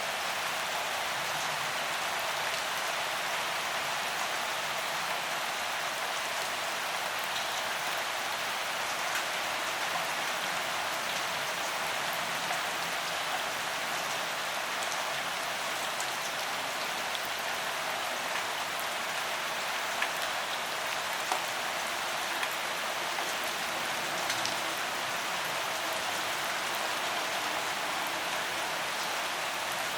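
Gentle, steady rain: an even hiss with scattered sharp ticks of single drops.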